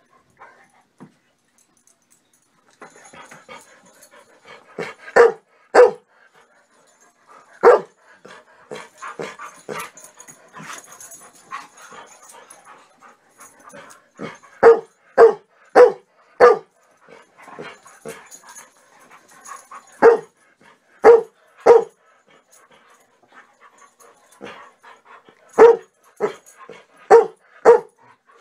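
Dogs at play barking: short sharp barks in quick runs of two to four, with quieter noises between the runs.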